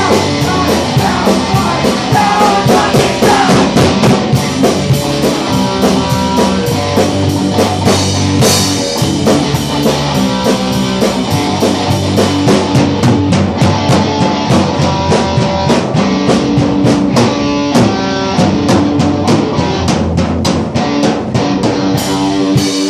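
Punk rock band playing a loud, fast song on electric guitar, bass and drum kit, with busy drumming throughout; the song stops abruptly at the very end.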